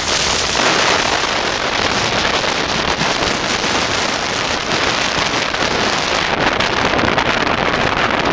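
Strong wind blowing across the microphone: a steady, loud rushing and buffeting.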